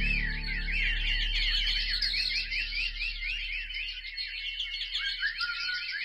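Small birds chirping busily, many quick high chirps overlapping in a dense chorus. Low background music fades out under it over the first few seconds.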